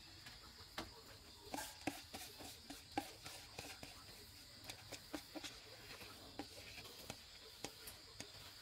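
Small snails in their shells clicking and tapping as they are tipped from a plastic tub into a paper-lined plastic colander and sorted by hand. A quick run of light clicks comes about two seconds in, then scattered ones.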